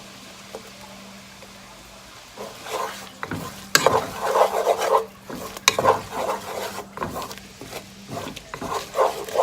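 Utensil scraping and clinking against a pan, stirring parmesan cheese into melted garlic butter. It starts about two seconds in and carries on in irregular strokes, with a few sharp clinks.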